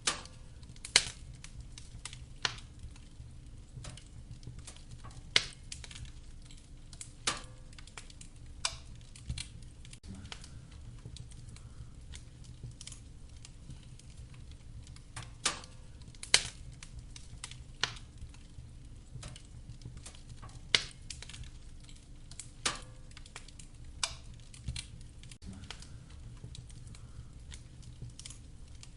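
Wood fire crackling in a fireplace: sharp pops and snaps at irregular intervals, a few of them loud, over a steady low rumble of the burning fire.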